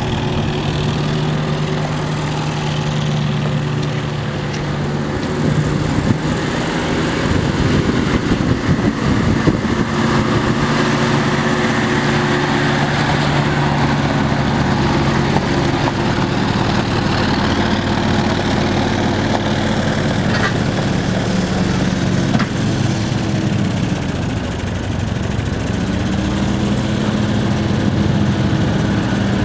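Studebaker Flight Hawk engine running at low speed as the car is driven across gravel, with tyres crunching on the stones. The engine note dips about three-quarters of the way through and then picks up again.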